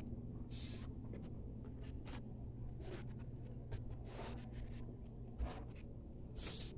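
Faint, scattered rustles and scuffs, a few short ones with the strongest near the end, over a steady low hum.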